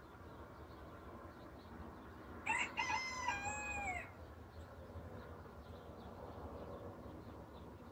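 A rooster crowing once, about two and a half seconds in: a few short choppy notes, then a long held note that falls in pitch at its end. A faint steady low rumble sits beneath it.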